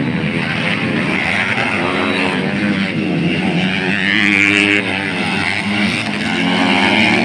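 Motocross dirt bike engines revving as the bikes ride past, the pitch repeatedly rising and falling with the throttle, several engines overlapping.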